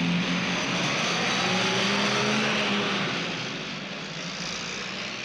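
Car engine revving on a film soundtrack, its pitch gliding up and down over a loud rushing noise, dying away over the last couple of seconds.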